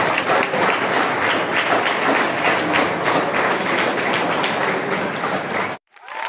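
Applause, a group of people clapping steadily by hand. It cuts off suddenly near the end.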